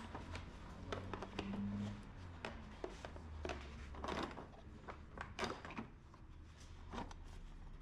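Irregular clicks and knocks of hand tools and metal parts being handled during motorcycle engine work, over a low steady hum.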